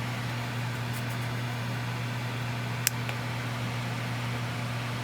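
Lasko high-velocity tower fan running while it oscillates: a steady rush of air over a low, even motor hum. A faint click about three seconds in.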